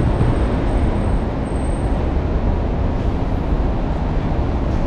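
Steady low rumble of city road traffic, even and unbroken, with no single vehicle standing out.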